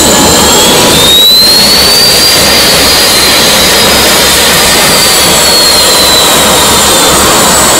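KAI FA-50 jets' F404 turbofan engines running at taxi power: a loud, steady jet roar with a high turbine whine that rises about a second in and slowly falls again.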